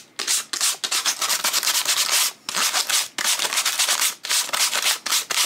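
Hand sanding along the edge of a decoupaged wooden cutout with a sanding pad: quick back-and-forth scratchy strokes, several a second, with a few short pauses. The sanding is taking off the excess decoupage paper that overhangs the edge.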